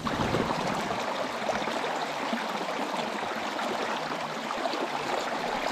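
Stream of water rushing steadily over rocks.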